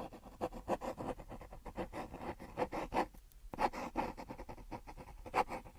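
Quick scratching and rubbing strokes, several a second, with a brief pause a little after three seconds in.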